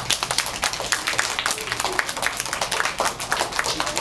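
An audience of schoolchildren applauding: many hands clapping in a dense, uneven patter.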